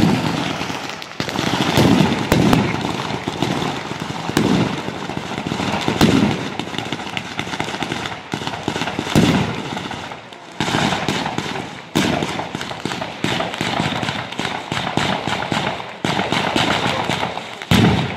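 Ground-level firecracker battery going off: a dense, rapid crackle of bangs with louder reports every second or two, easing briefly about ten seconds in.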